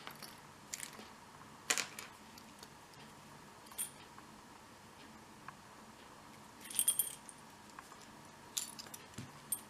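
Scattered light metallic clicks and clinks of a vintage padlock and its keys being handled, with a brief ringing jingle about seven seconds in.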